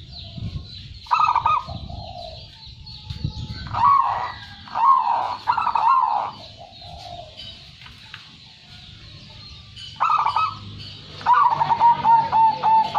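A zebra dove (perkutut) cooing in repeated rolling phrases, ending in a fast run of short staccato notes near the end.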